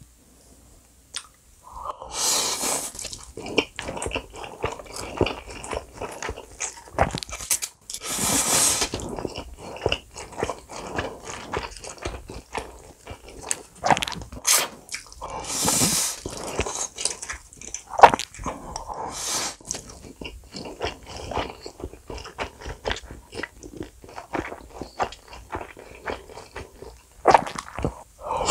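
Close-miked eating of jajangmyeon black bean noodles: several long slurps of saucy noodles, about a second each, with wet chewing and small mouth clicks between them. It starts after a couple of quiet seconds.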